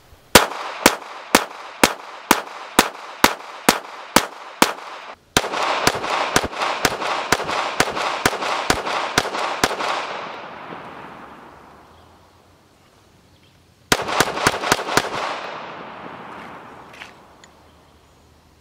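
A 9mm Glock 19 pistol with a compensator muzzle device being fired in strings. First come about eleven evenly paced shots, roughly two a second. A faster string of rapid shots follows and fades out, and then a quick burst of about five shots comes near the end.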